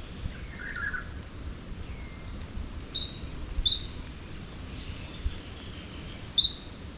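A bird calling with short, high chirps, each dropping slightly in pitch: a pair about three seconds in and a few more near the end, over a low rumble of outdoor noise.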